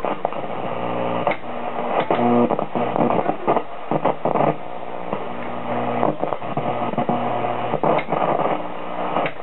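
1960 Philco Briefcase 19 portable television, switched on and tuned to a snowy, rolling picture, giving a steady buzz mixed with hiss and scattered crackles.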